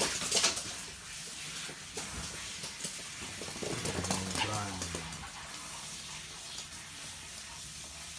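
Toy poodles' claws clicking on a laminate floor as they run, with a short, low vocal sound that bends in pitch about four seconds in.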